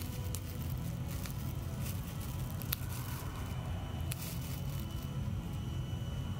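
Plastic bag of dry cat food crinkling in short sharp clicks and crackles as a kitten paws and bats at it, over a steady low rumble.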